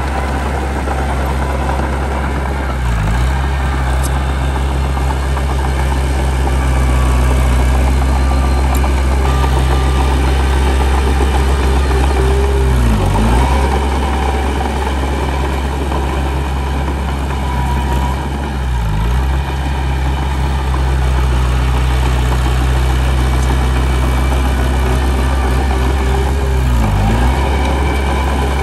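Heavy diesel engine of earthmoving machinery running steadily. Its speed dips briefly and recovers four times.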